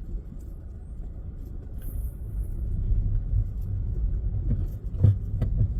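Car on the move, a low rumble of engine and road noise heard from inside the cabin, growing louder partway through, with a few short knocks near the end.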